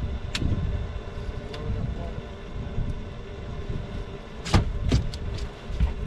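Steady low rumble with a few sharp knocks and clatters on a fishing boat, loudest in a cluster about four and a half to five and a half seconds in.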